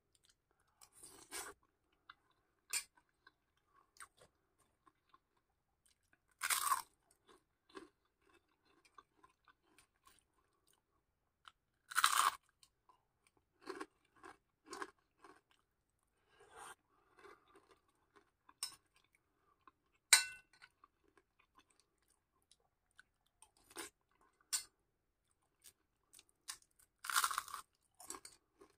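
Close-up chewing and crunching of kupat lengko, rice cake with fried snacks and raw vegetables in peanut sauce, in irregular bites with several louder crunches. About two-thirds of the way through, a metal spoon clinks sharply on the glass plate.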